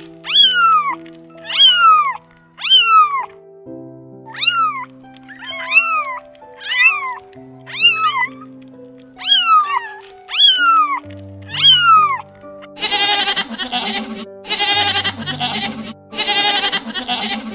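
Kittens meowing again and again, about a dozen short, high meows, each falling in pitch, over background music. About 13 seconds in this gives way to a goat bleating three times, each bleat long and wavering.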